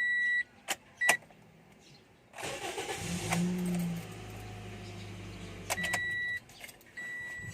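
A 2014 Toyota Vios being started: a key click, then a brief crank as the engine catches, revs and settles into a steady idle. This is a hard-starting car whose clogged fuel filter the mechanic blames for the trouble. A high electronic chime from the car beeps at the start and again near the end.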